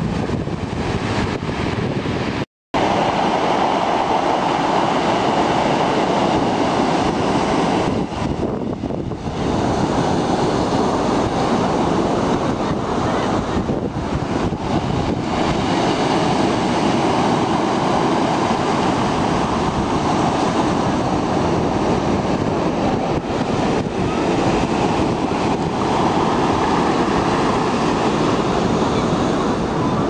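Sea waves breaking and washing up the shore in a continuous loud rush, with wind on the microphone. The sound cuts out for a split second about two and a half seconds in.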